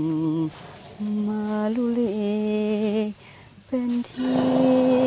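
A woman singing a slow lullaby unaccompanied, in long held notes with short breaths between phrases.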